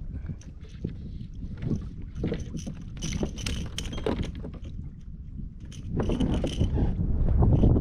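Wind rumbling across the microphone, with water slapping against a kayak hull. Clusters of light, sharp clicks come about three seconds in and again from about six seconds in, when it all gets louder.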